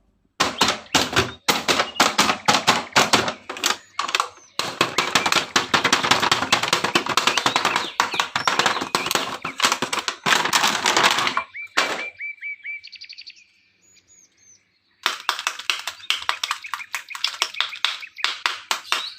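Plastic toy packaging being handled, with rapid crinkling and crackling in two long stretches. During the pause between them, birds chirp briefly with a run of repeated high notes.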